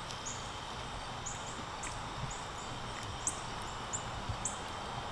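Quiet outdoor yard ambience: a steady hiss with short high chirps repeating about twice a second.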